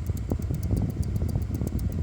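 Antec 620 W computer power supply making a strange noise: a low rattling buzz with irregular crackles over a fast, even high ticking, about ten ticks a second.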